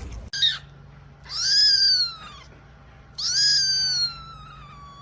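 Kitten meowing in a high, thin voice: a short chirp, then two meows that rise and fall, the second longer and trailing off downward.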